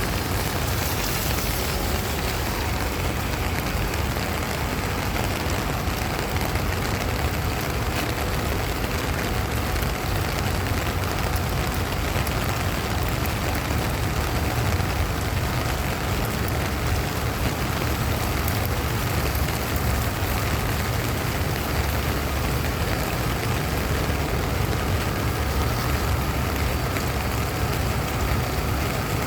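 Steady rain: an even, unbroken hiss with a strong low rumble underneath.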